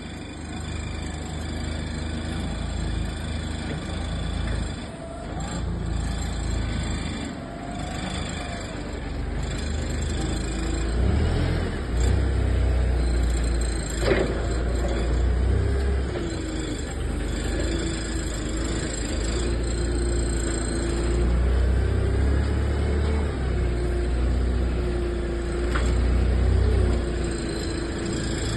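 A heavy machine's engine running with a steady low rumble and a whine that wavers in pitch, with one sharp click about halfway through.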